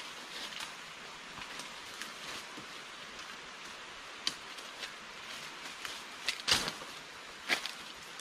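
Footsteps crunching and snapping on dry leaf litter and twigs, scattered at first and then coming louder and closer over the last couple of seconds. A steady high hiss runs underneath.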